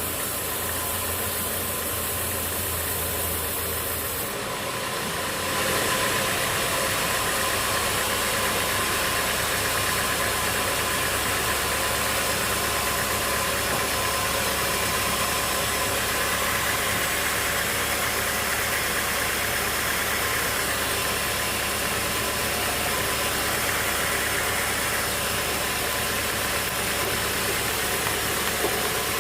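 Sawmill machinery running steadily with a continuous engine hum and noise; about five seconds in the sound shifts and becomes slightly louder, then holds steady.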